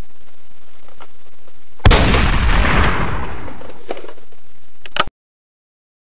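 A dubbed gunshot sound effect: one loud sudden blast about two seconds in, with a long fading tail. A short sharp click follows near the end, then the sound cuts off abruptly.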